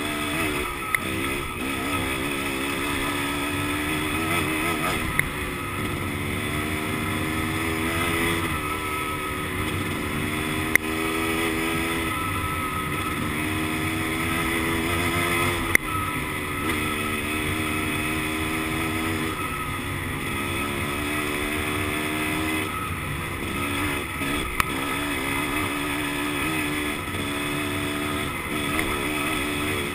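Dirt bike engine pulling up a climb, its note rising and then falling back every few seconds as the throttle and gears change. Wind noise over the microphone and a few sharp clicks.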